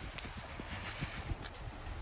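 Footsteps of a person walking on a cleared, damp concrete sidewalk: shoes tapping at a steady walking pace over a faint outdoor hiss.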